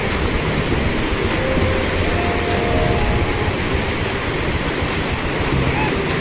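Dam overflow water rushing down a stone-lined channel: a steady, heavy torrent of churning white water.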